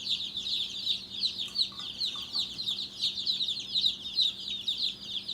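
A brooder full of day-old meat chicks peeping without pause, many short high chirps, each falling in pitch, overlapping one another.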